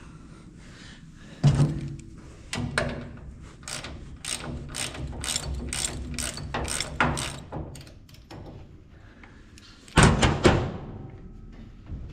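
Channel-lock pliers used as a wrench on a heavy nut on a grain drill's gearbox: a run of metallic clicks, about two a second, as the pliers are worked on the nut, with a louder metal clank about a second and a half in and another near the end.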